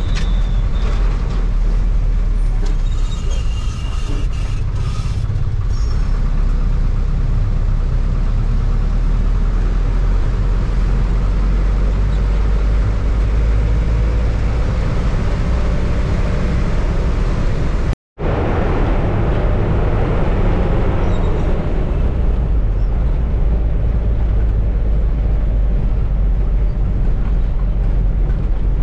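Hyundai-engined bus driving, heard from inside the passenger cabin: a steady drone of engine and road noise. About two-thirds of the way through the sound drops out for a split second.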